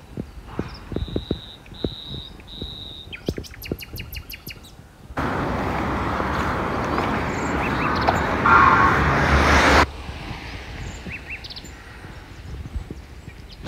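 Birds calling: three clear, steady whistled notes, then a quick rattling trill. Then a loud rushing noise that starts abruptly about five seconds in and cuts off just as abruptly some four and a half seconds later, after which faint chirps go on.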